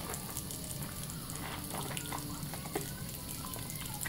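Bathroom faucet running a thin stream into a sink while soapy hands rub and squeeze thick bar-soap lather, giving small wet clicks and crackles over the steady water.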